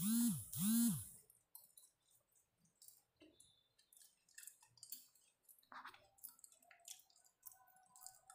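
A person eating dates: faint chewing and small wet mouth clicks, opened by two short, loud closed-mouth 'mm' hums that each rise and fall in pitch, with another hum just at the end.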